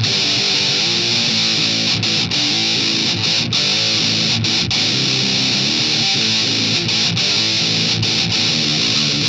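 Electric guitar played through a Harley Benton Extreme Metal distortion pedal: a heavily distorted metal riff with thick, fizzy high-gain tone, broken by brief stops in quick pairs.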